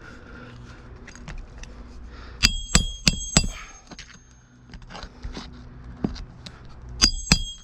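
Hammer driving roofing nails into an asphalt shingle: four quick ringing metal strikes about a third of a second apart, then two more near the end, with light clicking and scraping between.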